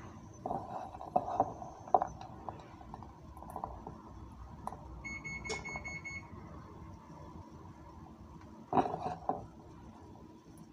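Light taps and knocks of hands working food over a stainless steel bowl, a cluster in the first two seconds and another near the end. About five seconds in, a short electronic beep sounds for about a second.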